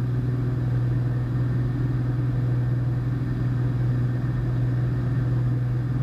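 Cessna 210 Centurion's piston engine and propeller droning steadily in the cabin during the climb, a constant low hum with no change in pitch.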